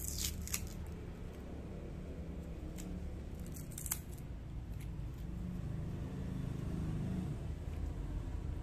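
Protective plastic film crackling as it is peeled and handled on a new metal-bodied hair clipper: a few short crackles near the start and again about three to four seconds in, over a low steady hum.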